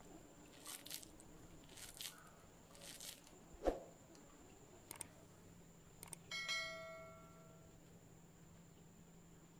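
Soft rustling of hands pressing a sesame and jaggery mixture, then a sharp knock. A couple of light clicks and a bell chime ringing out for about a second and a half follow: a subscribe-button notification sound effect.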